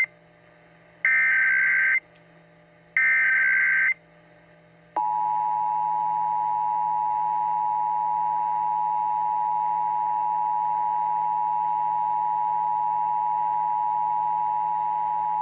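Emergency Alert System tones. First come two short warbling SAME data-header bursts, each about a second long and a second apart. About five seconds in, the steady two-tone EAS attention signal starts and holds.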